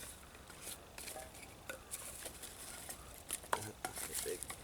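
Dry tinder and small sticks rustling and crackling as they are handled and laid by hand on a raft of wood: an irregular scatter of short crisp clicks, busiest near the end.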